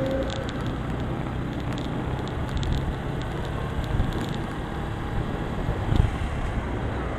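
Motorcycle engine running while riding, under steady wind and road noise, with a short knock about six seconds in.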